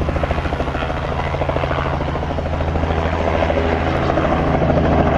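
Helicopter taking off: rapid, even rotor beat over a steady low engine drone, slowly growing louder.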